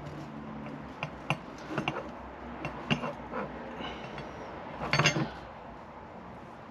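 Light clicks and clinks of a fender-eliminator bracket and its wires being handled as twisted LED wires are threaded through a small hole in the bracket, with a louder cluster of clinks about five seconds in.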